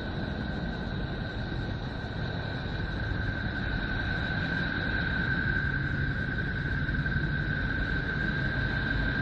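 Space sonification: planetary or solar radio emissions converted to audio, heard as a steady rumbling hiss with a constant high whistling tone over it.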